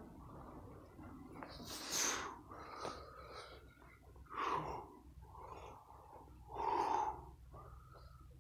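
A man's heavy breathing from exertion: three loud, short exhales about two seconds apart, with softer breaths between.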